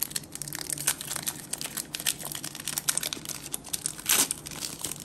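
A foil Pokémon trading-card booster pack crinkling and crackling in the hands, then torn open across its top about four seconds in with a short loud rip.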